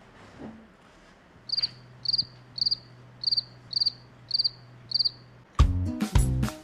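Cricket chirping, seven short high chirps about two a second over a faint steady hum, the stock comedy sound effect for an awkward silence. Music with a heavy beat cuts in near the end.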